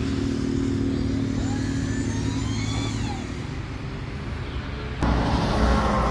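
Engine running steadily with a low hum that fades about three seconds in, then a louder vehicle engine from about five seconds in.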